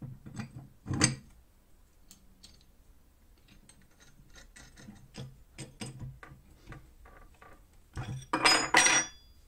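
Steel parts of a belt-grinder wheel assembly clinking as they are fitted by hand onto a bolt, with a run of light ticks as a washer and lock nut go on. Near the end come a few loud metallic clanks with a ringing tone as two open-end steel wrenches are set on the nut to tighten it.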